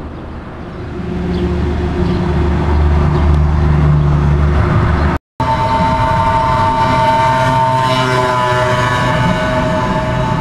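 A diesel locomotive's engine running with a low rumble that grows louder about a second in. After a sudden cut, a RENFE AVE high-speed electric train approaches with a steady whine of several tones over the rumble of the train.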